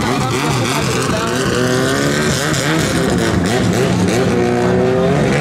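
Long-tail racing boat engine running hard. Its pitch drops and wavers for several seconds, then climbs back to a steady high note near the end.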